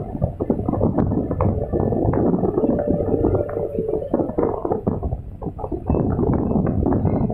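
Hydraulic excavator's diesel engine running with a heavy low rumble while the hydraulics work the boom and bucket, dumping soil and swinging it to the slope. Scattered knocks and rattles come from the machine and the soil throughout.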